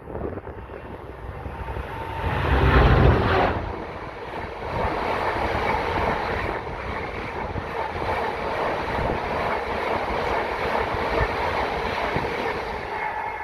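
Freight train passing close by: the locomotive goes by loudest with a heavy rumble about two to three seconds in, followed by a long, steady rolling noise of the wagons on the rails.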